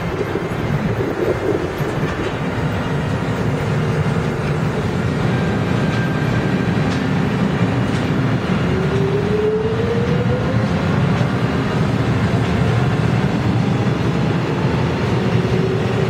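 Korail 1000-series electric subway train pulling out of a station and gathering speed: a steady rumble of wheels and running gear, with a whine from the traction motors rising in pitch from about halfway through.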